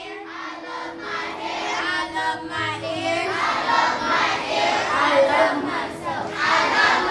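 A large group of schoolchildren chanting and singing together. They get louder about a second in.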